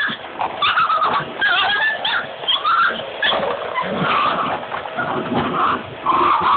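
Dogs barking and growling at a running vacuum cleaner, in irregular bursts over a faint steady motor hum.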